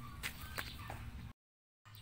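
A few sharp clicks and knocks of a phone camera being handled over faint outdoor ambience with a low hum. About halfway through, the sound cuts out completely for about half a second at an edit.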